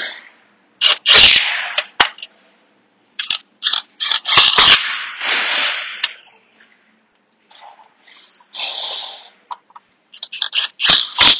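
Power gun running in about eight short bursts with gaps between them, tightening the pan bolts on a rebuilt CVT transmission one after another.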